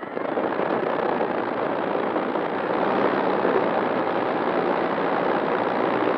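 Propeller blast and motor noise rushing over the onboard camera's microphone as the FMS Ranger RC plane's electric motor is throttled up. The rush swells in the first half-second, then runs loud and steady.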